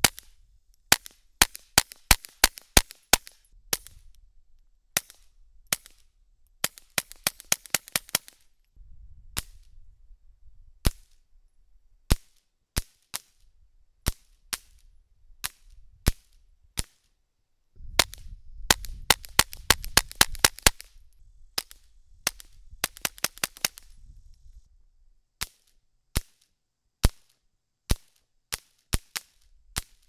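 Suppressed Ruger Mark IV .22 LR pistol firing 40-grain Aguila rounds: sharp, short cracks in quick strings of several shots, with brief pauses between strings.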